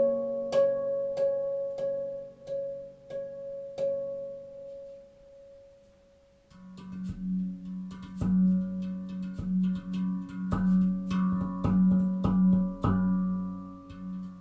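Manik handpan tuned to F#2 Nordlys, played with the fingers. A single mid-pitched note is struck about twice a second and fades almost to silence about six seconds in. Then a low note rings out under quicker strikes of several notes.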